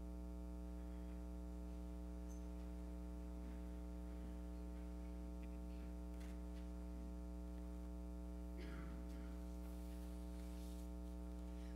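Steady electrical mains hum with a stack of even overtones, faint and unchanging, with a few soft rustles about six and nine seconds in.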